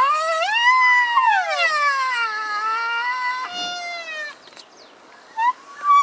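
Baby white rhinoceros calves making high-pitched calls that glide up and down in pitch, the sound they make in anticipation of a milk feed. One long drawn-out call fills the first four seconds, then after a short pause a shorter call begins near the end.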